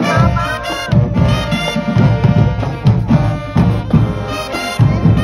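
High school marching band playing loudly: brass horns carry the tune over a steady, driving beat of drum hits.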